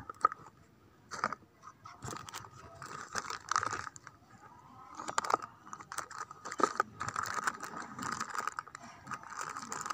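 Scattered clicks, knocks and rustling of items being handled while something is searched for, over a faint steady hum.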